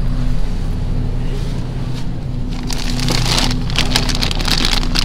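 A plastic bag of frozen blueberries crinkling and rustling as it is pulled from the freezer and handled, starting a little past halfway, over a steady low hum.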